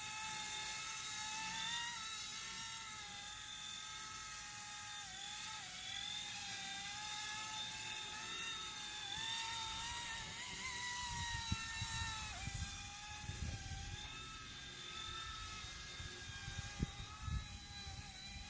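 Small electric toy RC helicopter hovering: a steady high motor-and-rotor whine whose pitch wavers slightly up and down as it holds position, with a few low bumps in the second half.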